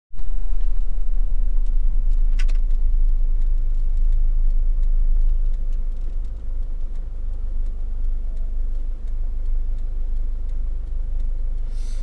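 Camping car driving on a wet road: a steady low rumble of engine and tyre noise heard from inside the vehicle, with a sharp click about two and a half seconds in and a short hiss near the end.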